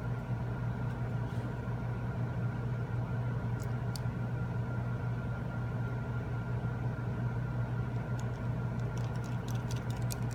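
Steady low electrical or machine hum, with a few faint clicks about four seconds in and a quick run of light ticks near the end, as small phone parts and tools are handled.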